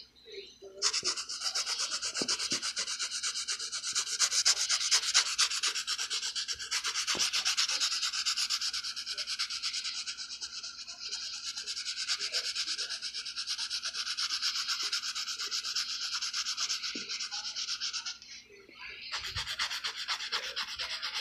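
Graphite pencil shading on drawing paper: rapid, continuous back-and-forth scratching strokes, with a brief pause near the end before the shading resumes.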